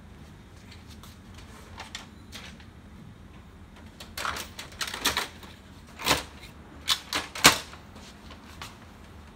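A string of sharp plastic clicks and knocks from an HP LaserJet P3015 laser printer as its toner cartridge door is opened, the parts inside are handled, and the door is pushed shut. The clicks start about four seconds in, and the loudest snap comes about seven and a half seconds in.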